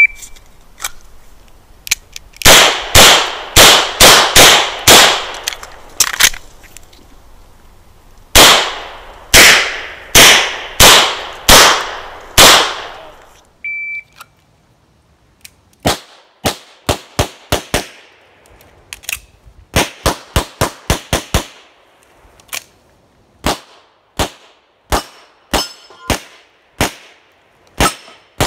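Practical-shooting stage fired with a handgun: a short high electronic shot-timer beep, then two fast strings of pistol shots with echo, split by a pause of about two seconds. A second timer beep about 14 seconds in starts another stage, with a quicker run of sharper, less loud pistol shots.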